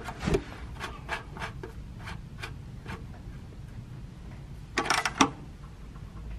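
Light, scattered metallic clicks as a Datsun 210's oil-pan drain plug is turned in by hand, then a quick cluster of louder clicks about five seconds in as a socket ratchet goes onto the plug.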